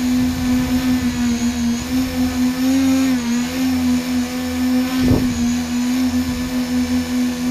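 Small multirotor's electric motors and propellers humming steadily, heard from the camera on board; the pitch rises slightly about three seconds in. A single dull thump about five seconds in.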